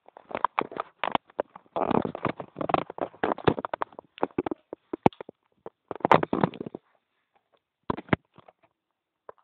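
Snoring: rattling, crackly snores in several bouts, thinning out to a few faint sputters near the end.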